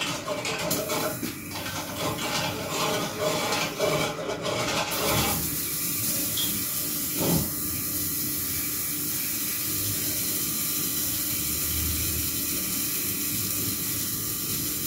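Kitchen towel rubbing over an apple close by, rustling and handling for about five seconds, then a steady even hiss.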